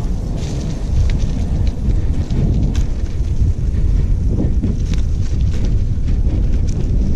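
Wind noise rumbling on the microphone of a camera moving fast along a dirt trail, with scattered light clicks and rattles from the ride over leaves and dirt.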